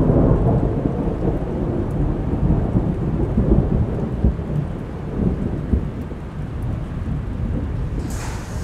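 Thunder rumbling long and low over steady rain, swelling in at the start and rising and falling in uneven surges. A brighter hiss joins near the end.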